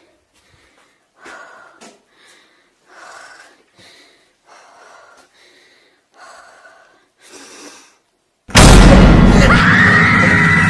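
A person breathing hard and shakily into the microphone, one breath about every second. About eight and a half seconds in, a sudden very loud blast cuts in, with a rumble and a wailing tone over it.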